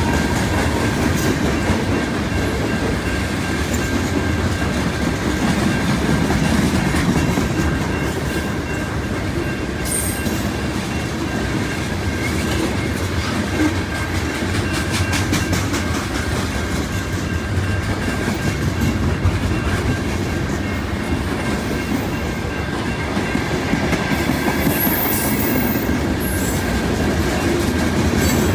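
Freight cars of a long mixed freight train rolling past: a steady rumble of steel wheels on rail, with a thin steady whine over it and a run of rhythmic clicking from the wheels over rail joints in the middle.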